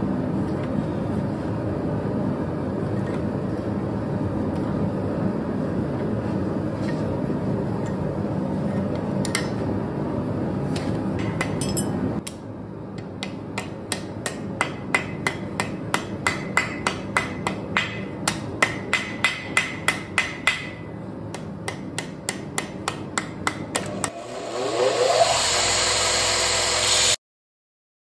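A steady rushing noise, then after a cut a hand hammer striking red-hot coil-spring steel on an anvil, blow after blow at about two a second, as the knife blade is forged. Near the end a belt grinder starts up with a rising whine and a loud hiss, then cuts off suddenly.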